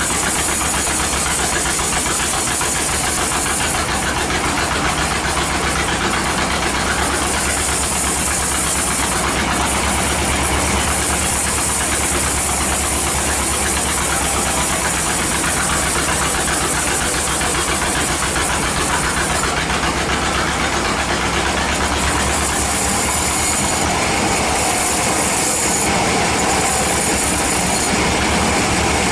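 Band sawmill running and sawing lengthwise through a teak log: a steady engine-driven drone with a pulsing low throb under the hiss of the blade in the wood.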